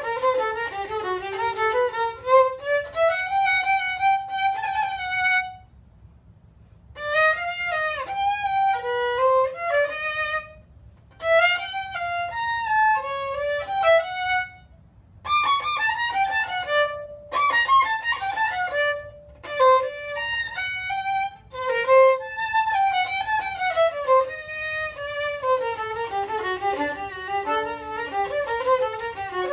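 Solo violin bowed in a melodic passage, played in phrases with short breaks, including a pause of about a second and a half about six seconds in.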